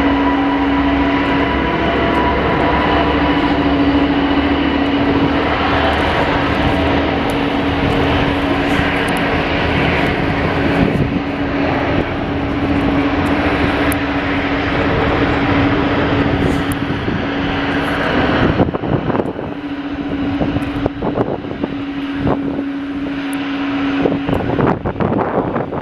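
Jet airliner engine noise, a loud steady rush with a held hum; about two-thirds of the way through its upper hiss drops away and gusts of wind buffet the microphone.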